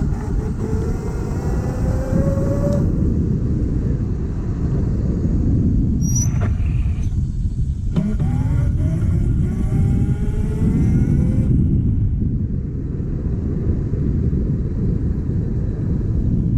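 Electric scooter motor whining and rising in pitch as it speeds up, over heavy wind rumble on the microphone while riding. The whine climbs for the first few seconds and cuts off, then climbs again from about halfway to two-thirds of the way in.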